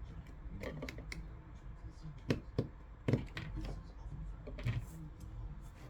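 A few light clicks and taps of small parts being handled, the sharpest about two and three seconds in, over a low steady hum.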